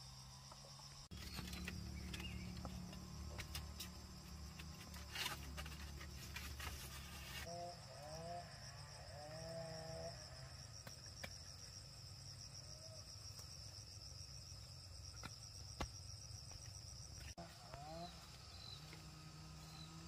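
Insects droning steadily in a high band. A few short chicken clucks come about eight to ten seconds in and again near the end. In the first several seconds there are light knocks and rustles of the woven bamboo coop being handled.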